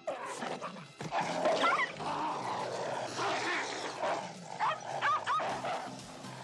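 A dog giving short, high yelping calls in two bursts, about a second and a half in and again around five seconds in, over a continuous rough noise.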